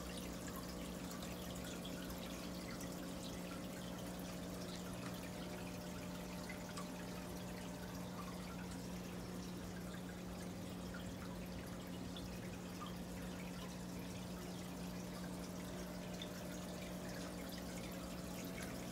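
Aquarium filter running: a steady motor hum with water trickling and dripping.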